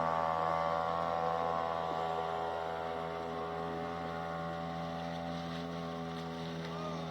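Seapro 2.6 small outboard motor running at steady speed, a constant buzzing drone that eases off a little after about two seconds.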